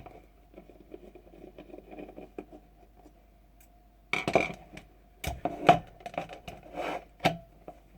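Parts of an airsoft gun's gearbox being handled and taken apart by hand: faint scraping and fiddling at first, then from about halfway a run of sharp clicks and clacks as parts knock together or are set down.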